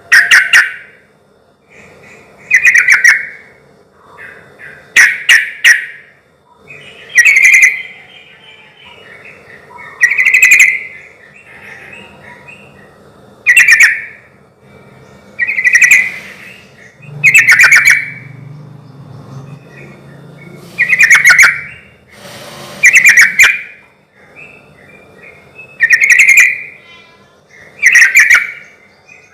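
Sooty-headed bulbul (trucukan) singing loudly, one short bubbling phrase every two to three seconds, about a dozen phrases in all.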